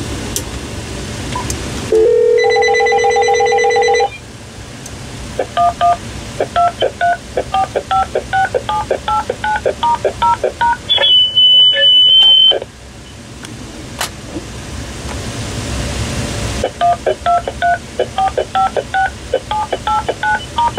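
Uniden DXAI388-2 cordless phone dialing out through a phone line simulator to check that its numbers dial correctly. A steady tone lasts about two seconds, then comes a quick string of touch-tone (DTMF) digits, a short high beep, and near the end another string of touch-tone digits.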